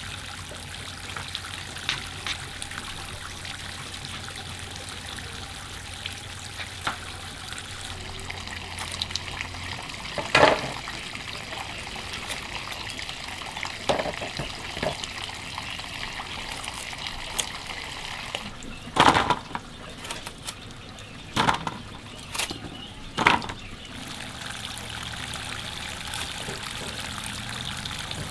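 Water trickling and pouring steadily, with several sharp knocks or clatters along the way.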